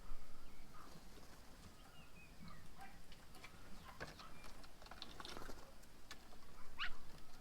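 Birds chirping at a bird table: short scattered calls and clicks, with one quick rising call near the end.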